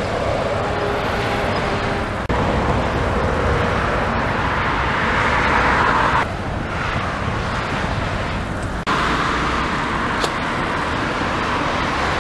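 Motorway traffic noise: vehicles passing at speed with a steady tyre and engine hiss that swells and falls as they go by. The sound jumps abruptly in level a few times where the footage is cut.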